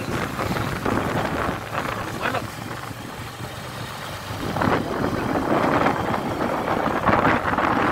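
Motorcycle engine running on the move, with wind buffeting the microphone; the wind noise grows louder about halfway through.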